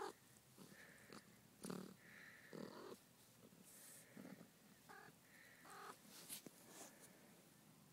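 Faint short mews and squeaks from young kittens lying with their mother cat, a few scattered calls with soft rustles between.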